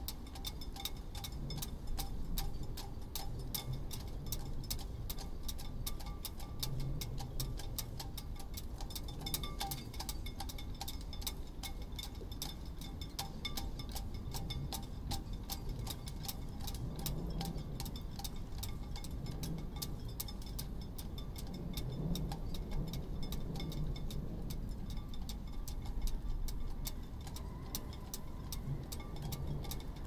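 Rigging on moored sailboats tapping and clinking against the masts in a mild wind: a dense, uneven run of small clicks with faint metallic ringing, over a low rumble of wind.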